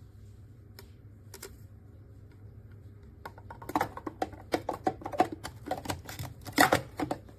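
A couple of single clicks, then from about three seconds in a quick, irregular run of sharp clicks and clatters of small hard objects being handled.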